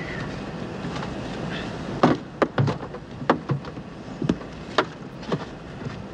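Steady airliner cabin drone, with a run of irregular knocks and clunks from about two seconds in as a man in a plaster leg cast bumps about in a cramped aircraft lavatory.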